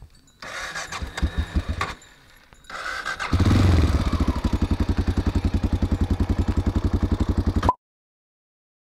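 Honda Dominator NX650's big single-cylinder four-stroke engine being electric-started: it cranks, stops, cranks again and catches about three seconds in. It is loudest just after it catches, then idles with a steady, even thumping beat. The sound cuts off abruptly near the end, leaving silence.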